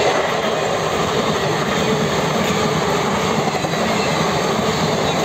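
Netaji Express passenger coaches passing close by at speed: a loud, steady rush of wheels on the rails.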